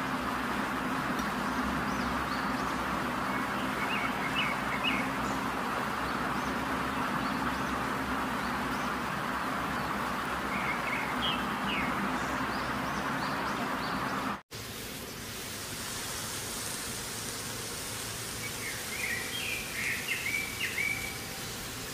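Birds chirping in short clusters, three times, over a steady hiss and a low hum. About two-thirds of the way through, the background cuts abruptly: the hum drops out and the hiss changes.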